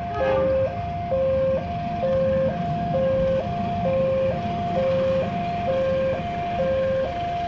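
Railway level crossing alarm sounding its fast two-tone warning: a higher and a lower electronic tone alternate steadily, about half a second each, signalling that a train is approaching.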